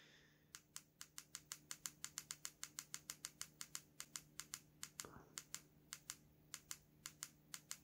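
Rapid, regular clicking of a TYT TH-350 handheld radio's keypad button pressed over and over, about four clicks a second with a couple of short pauses, as the radio steps through its menu settings.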